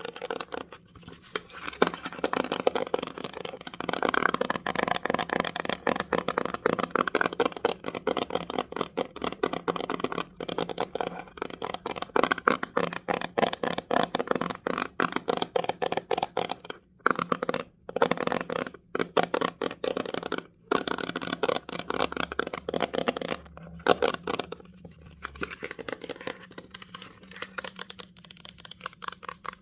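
Rapid ASMR tapping and light scratching with fingers on a small object, dense runs of many taps a second broken by a few brief pauses in the second half.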